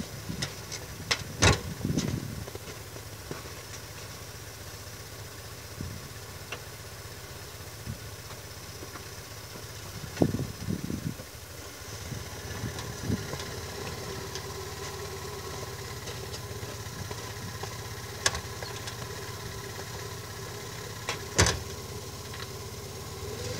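Small two-cylinder engine of a VAZ Oka hatchback idling steadily, with a few sharp knocks, the loudest about a second and a half in and again near the end.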